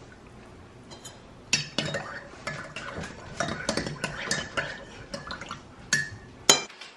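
Metal spoon stirring coffee in a ceramic mug, clinking rapidly against the sides for about five seconds, with a couple of sharper clinks near the end.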